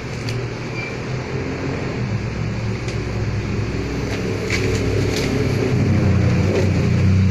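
A motor vehicle's engine running nearby, a steady low hum that grows louder over the last couple of seconds, with a few light clicks partway through.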